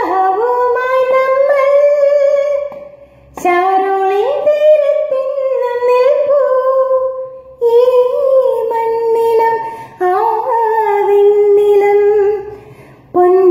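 A woman singing a Malayalam song solo in long held phrases with vibrato, with four phrases broken by short breaths. The small room adds some echo.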